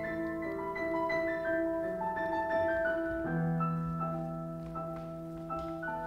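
Soft instrumental background music with sustained notes, the chord changing about halfway through.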